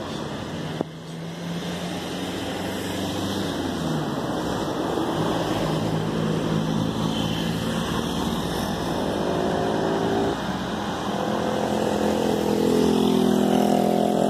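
Street traffic: engines of passing vehicles. One engine drops in pitch about four seconds in, and another rises steadily in pitch over the last few seconds as it speeds up.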